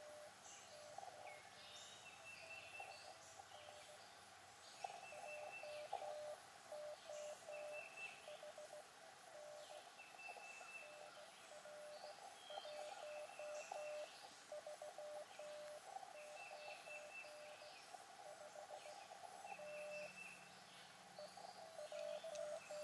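Faint Morse code received on the Elecraft KX2 transceiver: a steady tone near 600 Hz keyed on and off in dots and dashes, the other station's reply in a CW contact. Short high chirping trills sound every second or two between.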